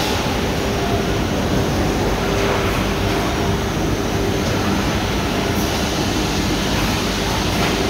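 Steady, loud machinery noise of a cardboard-carton palletizing line with powered roller conveyors running, with a hum that fades in and out several times.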